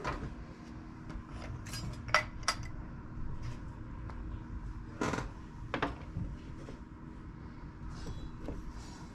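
Small hard clicks and clinks as a pen tip is handled and test-fitted into a drilled hole in a diamond painting pen blank, a few scattered taps with a louder pair about two seconds in and another about five seconds in. A faint steady hum sits underneath.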